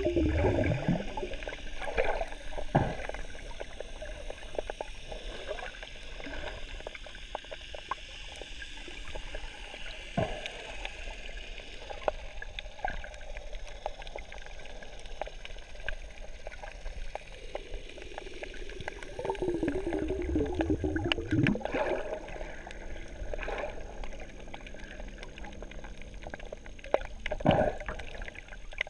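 Underwater sound heard through a GoPro's housing: a scuba diver's exhaled bubbles rumble and gurgle twice, once at the start and again about twenty seconds in. Between them come a few sharp clicks and a faint steady hiss.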